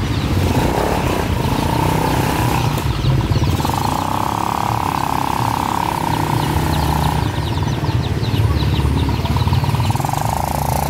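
Motorcycle engines running along the road, with a steady mid-pitched hum coming and going. Through the middle, many short high peeps from a cage of young chicks.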